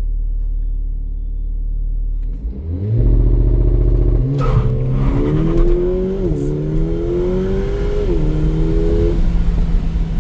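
Mercedes-AMG GLA45's turbocharged 2.0-litre four-cylinder in a launch control pull: it holds steady revs for about two seconds, then accelerates hard, rising in pitch, with three quick upshifts that each drop the pitch sharply.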